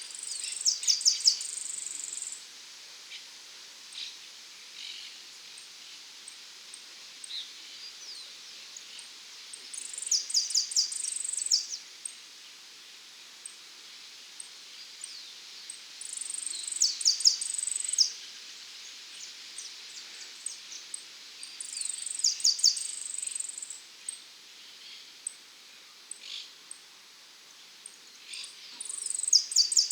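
Young male saffron finch singing five short, fast, high-pitched song phrases, each about one and a half to two seconds long, spaced roughly six seconds apart. Insects tick faintly and steadily between the phrases.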